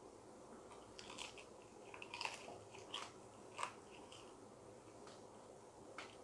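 Faint crunching as a crisp, crumb-coated fried chicken drumstick is bitten and chewed: about four short crunches in the middle, and another near the end.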